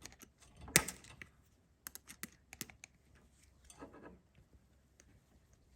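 Pliers clicking and scraping against a small steel figure-8 hook as it is squeezed closed around a snowblower control cable: scattered sharp clicks, the loudest about a second in, and a short scrape near the end.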